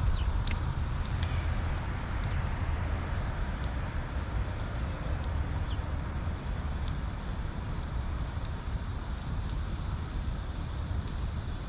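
Steady low outdoor rumble, with a couple of sharp clicks at the start and a few faint ticks afterwards.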